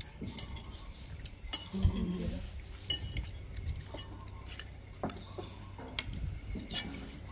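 Spoons and forks clinking against plates and bowls during a meal: scattered sharp clinks at irregular intervals, the loudest about two seconds in and again near the end.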